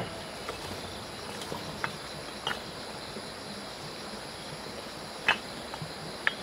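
Steady chirring of an outdoor insect chorus, with several short, sharp knocks or clicks scattered through it, the loudest about five seconds in.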